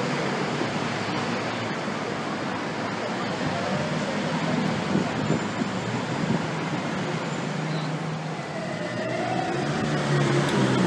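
Supercar engines running at low speed amid steady city street traffic. Near the end an engine note rises and gets louder.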